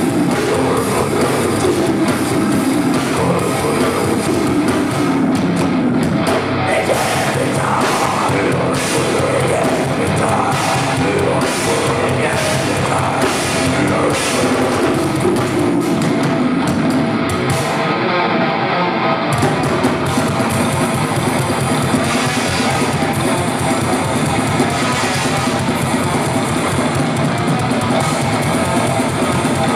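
Live death metal band playing: heavily distorted electric guitars over a drum kit. The band breaks off for about a second around eighteen seconds in, then comes back in.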